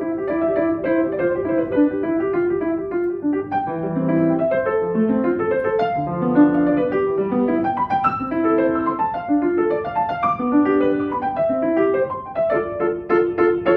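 Solo piano playing a classical piece in quick running notes, with a steady flow of short notes in the middle and upper range and lower notes moving beneath them.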